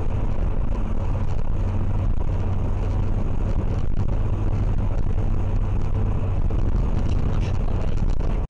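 Car cabin noise at highway speed: steady engine drone with a low hum, mixed with tyre and wind rush.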